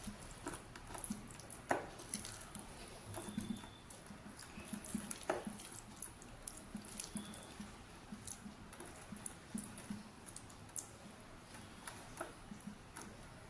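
Hands rubbing spice paste into raw chicken leg pieces in a bowl: faint wet squelching with soft taps, and two sharper clicks about two and five seconds in.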